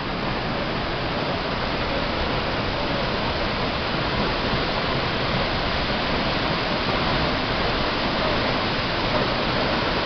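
Tall waterfall of some 80–90 m pouring into its plunge pool, carrying a heavy flow of water: a loud, steady rush of falling water.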